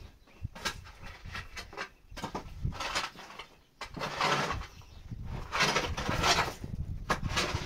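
A wooden plank knocking a few times, then scraped repeatedly across a bare dirt floor in several longer strokes.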